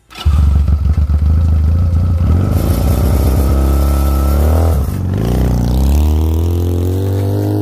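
A Chinese 250cc ATV's engine running loud and close, starting suddenly just after the start. It revs as the quad pulls away, its pitch rising and falling through the last few seconds.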